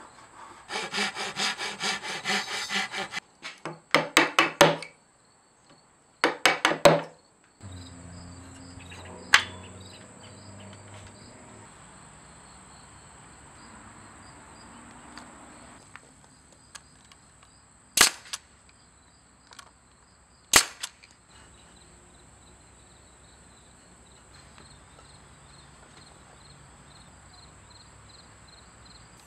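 Hand tools working cherry wood: a run of quick rhythmic scraping strokes, then two short bursts of strokes, followed by a quieter stretch with a few sharp single snaps.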